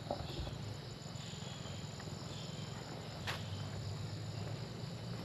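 Crickets chirping in a steady chorus, with one short click about three seconds in.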